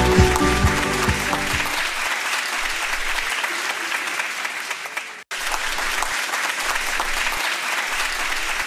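Crowd applauding, with the last notes of light plucked background music under it for the first couple of seconds. The applause breaks off for an instant about five seconds in, then carries on.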